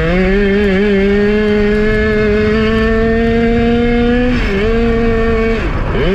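200cc racing kart engine held at full throttle, its pitch climbing slowly, with a brief dip about four seconds in and a sharp fall in revs near the end.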